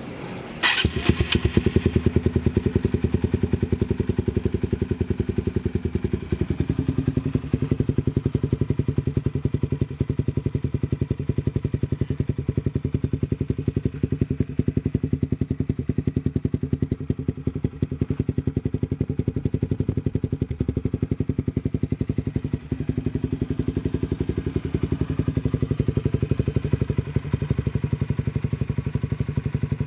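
Honda CBR150's single-cylinder four-stroke engine through an R9 Racing aftermarket exhaust muffler, starting about a second in and then idling with an even, rapid exhaust pulse, the idle settling slightly lower a few seconds later.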